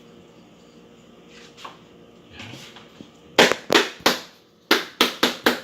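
Hammer blows in quick runs: three sharp strikes, a short pause, then four more, after a few seconds of quiet handling sounds.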